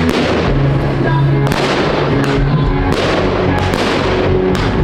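Aerial firework shells bursting in a string of sharp bangs about a second apart, over music with long held notes.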